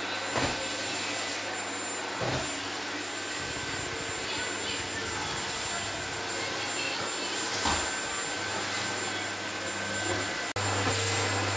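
Canister vacuum cleaner running steadily with a high whine, the wand knocking lightly a few times. The sound cuts out for an instant near the end and comes back louder.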